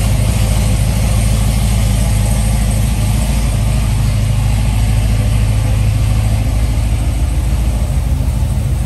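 2012 Corvette Grand Sport's LS3 V8 engine running at a steady, even pitch, with a constant rushing noise over it.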